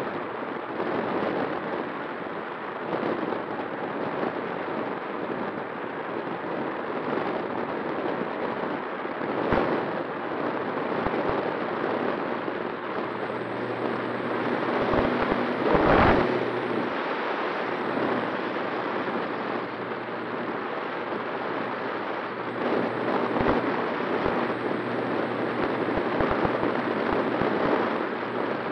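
Airflow rushing over the microphone of a camera riding on a Skua FPV flying wing in flight, gusting up and down with sharp buffeting thumps, the biggest about halfway through. A faint steady tone runs underneath, from the spinning pusher propeller and motor.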